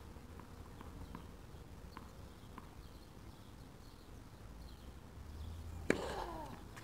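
Tennis ball bounced on the court before a serve, a series of faint light taps, then the sharp crack of the racket striking the ball on the serve about six seconds in.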